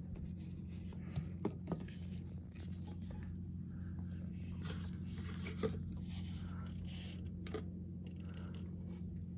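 Faint handling noises, a few small clicks and rubbing, as gloved hands work a clear plastic bleeder hose onto a drum brake's bleeder screw, over a steady low hum.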